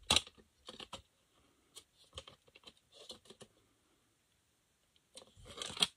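Plastic CD jewel case handled and opened: a run of light plastic clicks and rattles over the first few seconds, then a louder clatter near the end.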